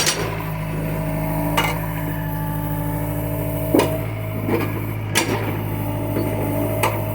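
John Deere excavator working: its engine runs steadily under a whine that comes and goes, while about six sharp clanks from the machine's working parts ring out at irregular intervals.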